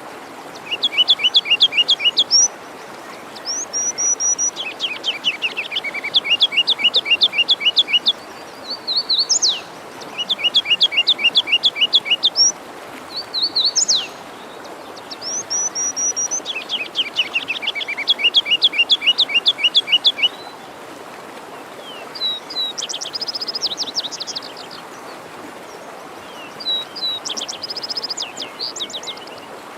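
Songbirds singing, repeating trilled phrases of rapid downswept notes about every two to four seconds over the steady rush of a forest stream.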